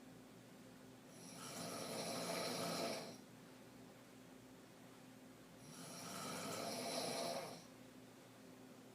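A woman in deep sleep on her back, mouth open, throat snoring: two long snores, each about two seconds, about four and a half seconds apart.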